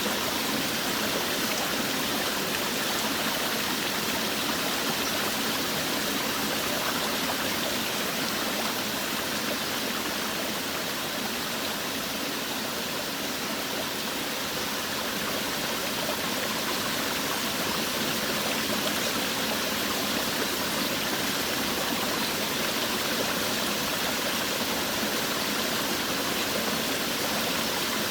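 Forest waterfall: water falling and rushing steadily, a constant even wash of sound.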